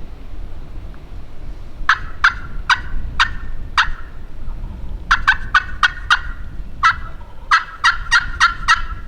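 Turkey calling in short, sharp yelp-like notes: five evenly spaced notes, then two quicker runs of about six notes each, over a steady low rumble of wind on the microphone.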